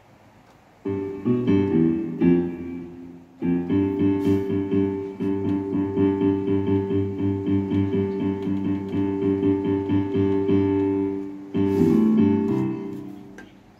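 An electronic keyboard being played: a few chords start about a second in, then after a short break a steady run of notes and chords follows, with a last phrase that fades out near the end.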